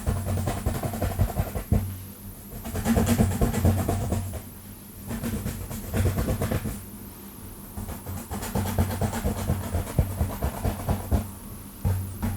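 Long fingernails scratching fast and hard through hair and scalp close to the microphone, in bursts of quick strokes a second or two long with a low rumbling rub.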